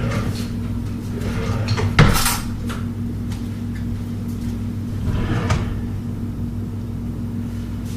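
Kitchen cupboard doors and utensils being handled while a cutting board and knife are fetched: a loud sharp knock about two seconds in, a softer clatter a little after five seconds, and small clicks, over a steady low hum.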